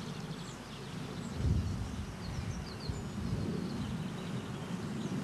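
Outdoor ambience: wind rumbling unevenly on the microphone, with a few faint bird chirps.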